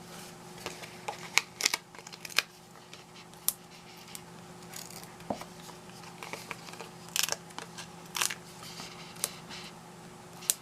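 Foam adhesive dimensionals being peeled from their backing sheet and card being handled: scattered light clicks and brief papery rasps, a few every couple of seconds.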